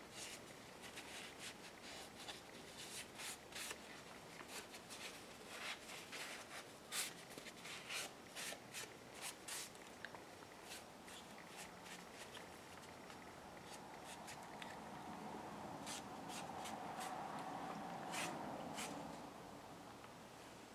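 Paper towel wiped lightly over a varnished, painted woodcarving: soft rubbing with many irregular small ticks. A faint steady hum swells in the last few seconds and fades near the end.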